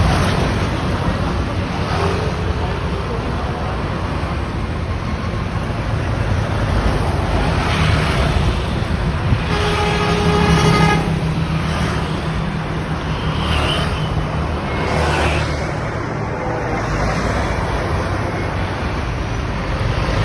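Heavy road traffic with bus engines running. About halfway through there is one steady horn blast, about a second and a half long.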